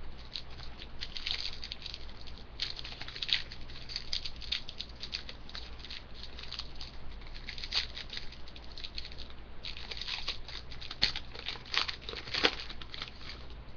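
Chrome trading cards being handled and shuffled, with rapid crinkly clicking and rustling that pauses briefly twice and has a few sharper snaps near the end.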